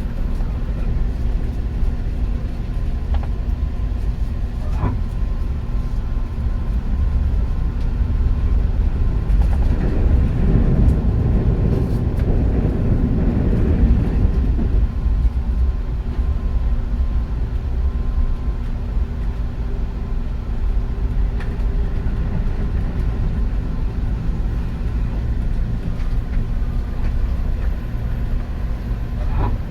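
Train running along the track with a steady low rumble, swelling into a louder rush about ten seconds in that dies back about five seconds later.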